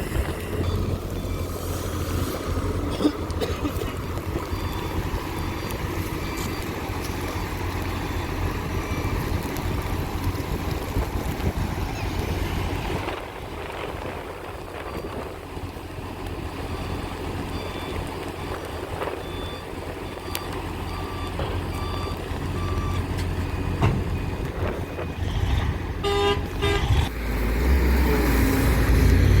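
Heavy diesel machinery running with a steady low rumble, over strings of short high electronic beeps repeating at even intervals, like a reversing alarm. A brief horn-like tone sounds about four seconds from the end, and the engine grows louder toward the end.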